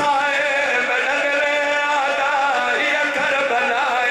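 A man's voice chanting a lament in long, wavering held notes, amplified through a microphone and PA system.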